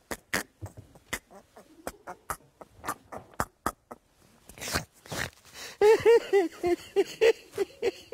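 A man laughing hard. It begins as a run of short snorts and clicks, then about six seconds in breaks into loud, rhythmic ha-ha bursts.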